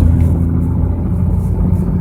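Mercedes-Benz S124 estate running cold, giving a low steady hum and rumble: the strange noise the owner says the car makes only when cold.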